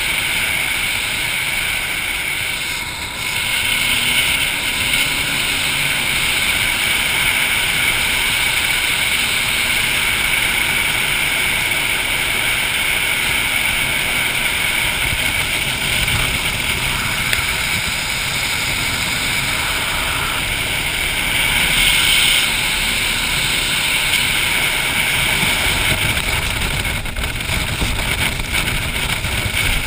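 Jet boat running fast on a river: a steady high-pitched engine and jet drone over rushing water, with wind buffeting the microphone. Near the end it turns choppier as the boat runs into whitewater rapids.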